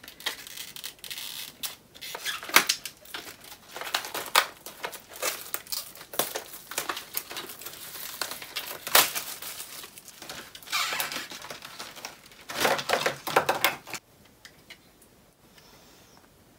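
Plastic packaging crinkling and tearing, in irregular crackles and clicks, as a new set of acrylic paints is unwrapped by hand; the handling stops about 14 seconds in.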